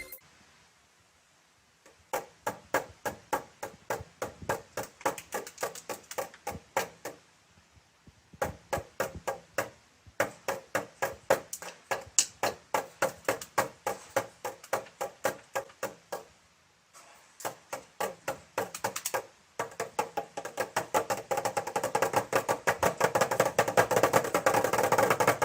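A rapid series of sharp taps or knocks, about four to five a second, in runs broken by short pauses, growing denser and almost continuous over the last few seconds.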